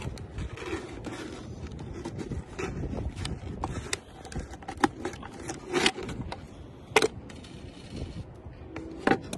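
Handling noise from an empty plastic bottle being worked with yarn and a pencil: scattered light clicks, crinkles and scrapes, with four sharper knocks or snaps in the second half.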